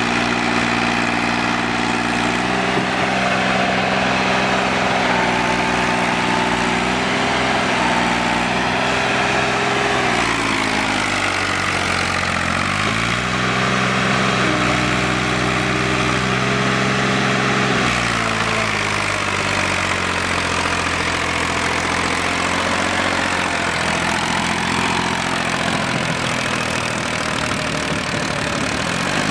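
Massey Ferguson tractor's diesel engine labouring as it hauls a trolley through deep sand. Its pitch sags and climbs again a few times as the load and throttle change.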